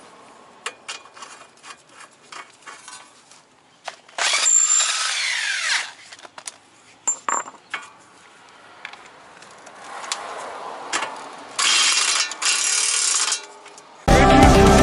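Cordless power tool run in short bursts: one of about a second and a half, then two shorter ones a few seconds later, between clicks and clatter of hand tools on the car's front hub. Music starts just before the end.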